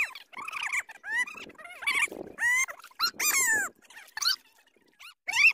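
An animal calling over and over in short, high, pitched cries that rise and fall in pitch.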